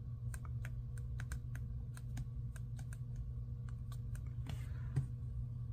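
Sticker sheets and paper being handled, making irregular light clicks and crackles, with a short rustle about four and a half seconds in, over a steady low hum.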